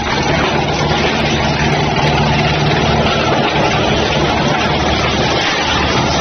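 Bolida YMPJ 1300 wood chipper running steadily: a constant low drone under a dense, even rushing noise.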